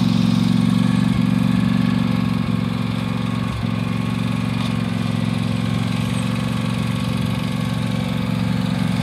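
Riding lawn mower's engine idling steadily, a little quieter from about three seconds in.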